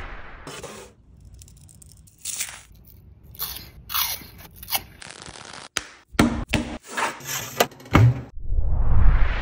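Crisp crunching of freeze-dried candy being bitten and chewed, a run of sharp crunches that grows louder past the middle. Near the end a whoosh sound effect swells and fades.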